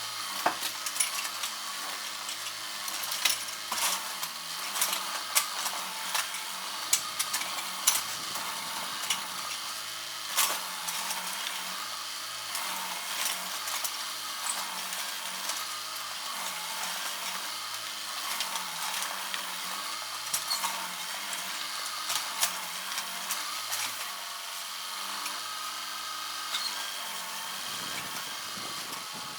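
House demolition by an excavator: wood and debris cracking, splintering and crunching, with many sharp snaps over a continuous crackle.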